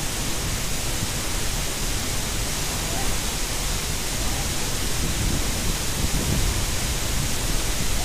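Steady rushing roar of a waterfall's falling water.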